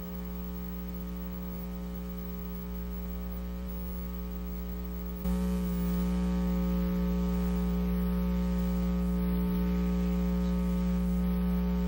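Steady electrical mains hum and buzz on the soundtrack, with no commentary. It steps up louder about five seconds in and then holds steady.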